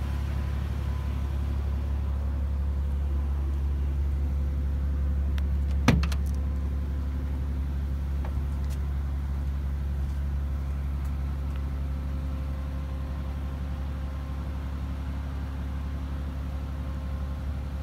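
Mercedes-AMG G65's V12 engine idling as a steady low hum, with a single sharp latch thunk about six seconds in as the side-hinged rear door is opened, and a few faint clicks after.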